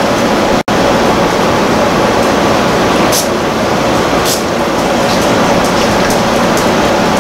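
Window air conditioner running with a steady rushing hum, with a few faint light ticks and one very brief dropout in the sound under a second in.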